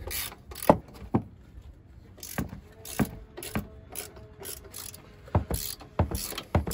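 Ratchet wrench clicking in short, irregular strokes as the 18 mm strut-mount bolts above the strut tower are loosened.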